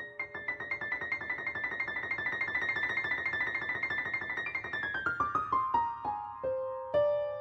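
Background piano music: a fast, high trill, then a falling run of notes that slows and settles on a held note near the end.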